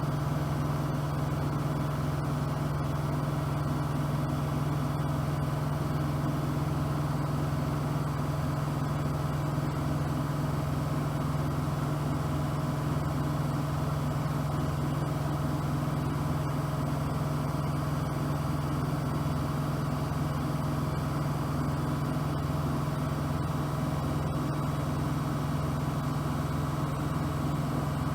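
Bosch AQUASENSOR WFP3231 front-loading washing machine running: a steady motor hum over a low, evenly repeating throb.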